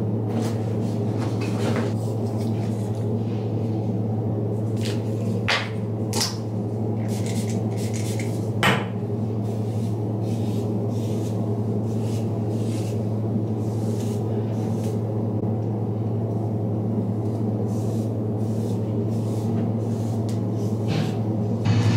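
A steady low hum runs throughout, with scattered light clicks and three sharper knocks between about five and nine seconds in.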